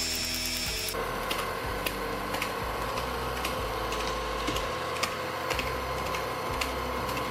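Electric stand mixer running steadily on low speed, its flat beater creaming butter and sugar in the bowl, with a faint regular ticking over the motor hum. This is the creaming stage that beats the butter pale and fluffy and wears down the sugar grains.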